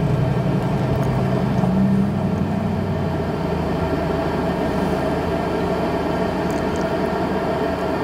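Planar portable diesel air heater running flat out at its highest setting, a steady whir of its blower fan and burner heard close up. A low tone in it rises a little over the first couple of seconds, then holds steady.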